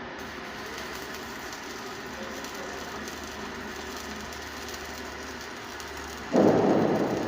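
Electric welding arc running with a steady crackling hiss that starts and stops sharply. Near the end a loud, rough burst of noise comes in and fades away.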